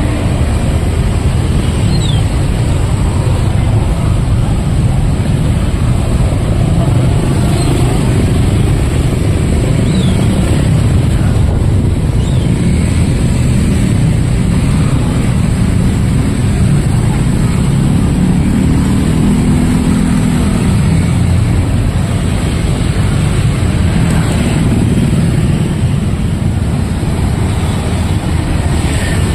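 Steady street traffic noise, mostly motorcycles and cars passing, with faint crowd voices.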